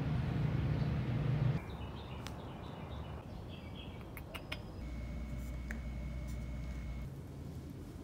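Outdoor garden ambience with a low hum and a few faint small-bird chirps and clicks. A steady high thin tone holds for about two seconds past the middle.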